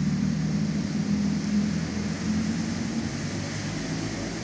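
A steady low engine hum, likely from a nearby vehicle, over a soft even hiss of rain. The hum fades out about three seconds in.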